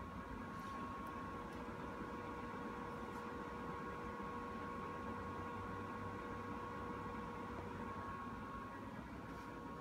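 Steady electrical hum with two thin, unchanging tones over a faint hiss, from a Hedson IRT infrared curing lamp switched on and heating.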